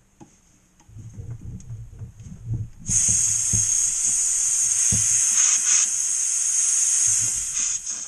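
Aerosol spray can of wall texture hissing steadily for about five seconds, starting about three seconds in, as texture is sprayed over a drywall patch. Before the spray, a few low knocks from handling the can.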